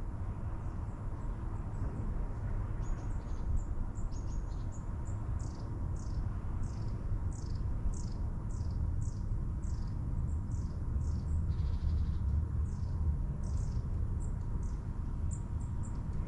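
Electric passenger train running, heard from the driver's cab as a steady low rumble. Over it, from a few seconds in, comes a rapid series of short high chirps, about two a second.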